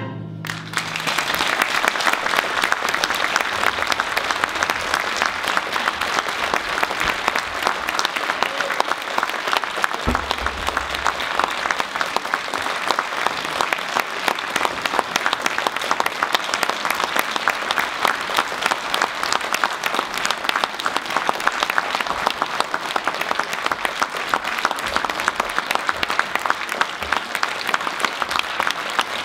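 Audience applauding, long and steady, with a single low thump about ten seconds in.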